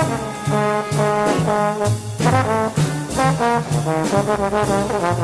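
Small-group hard-bop jazz: a brass solo line, most likely trombone, plays a steady stream of notes over a walking upright bass and regular ride-cymbal strokes.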